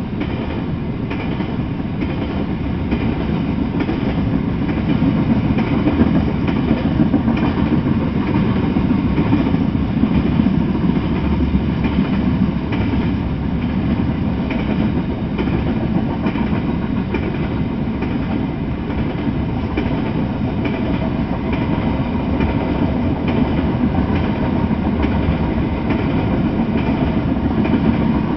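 Freight train of tank cars rolling past, a steady noise of steel wheels on the rails with faint repeated clicks.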